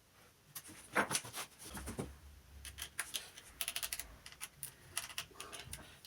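Irregular small clicks and taps of plastic and metal laptop parts being handled and worked on during disassembly, with a quick run of clicks a little past halfway.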